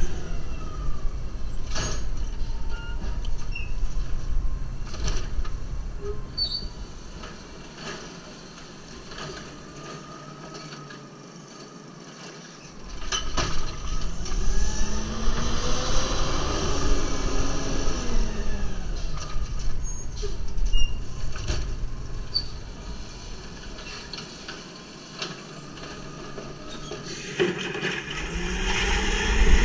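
Natural-gas automated side-loader garbage truck working at the curb. Its engine and hydraulics run, then rise and fall in pitch for several seconds midway as the side arm cycles to empty the carts, with scattered clunks and knocks.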